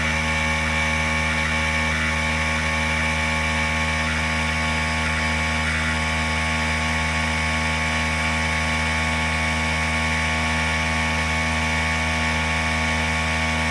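Mastercraft 2-gallon portable air compressor running steadily under load as it pumps the tank up toward 120 psi, a loud motor-and-pump hum with many steady tones. It cuts off abruptly at the very end: the modified pressure switch shutting it off at about 120 psi.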